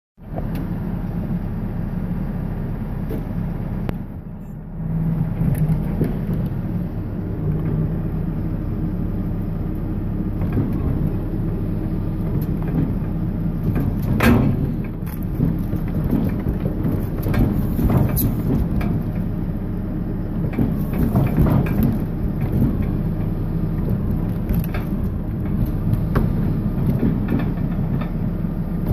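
Telehandler's diesel engine running steadily as the boom lifts a wooden crate on its forks, the engine note dipping briefly about four seconds in. Several sharp knocks and clunks come through over the running engine.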